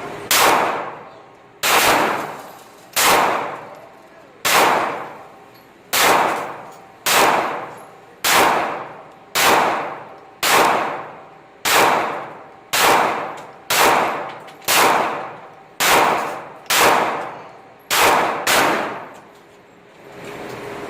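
About seventeen 9mm pistol shots from a Smith & Wesson Sigma SW9VE, fired at a slow steady pace of a little over one per second, each with a ringing echo. The last two come closer together.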